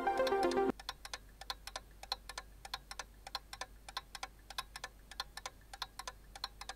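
Quiz-show countdown-timer sound effect: steady clock ticking, several ticks a second, taking over when the background music cuts off under a second in.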